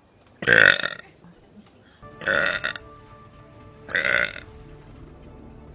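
Three loud burps about a second and a half apart, the first the loudest and longest.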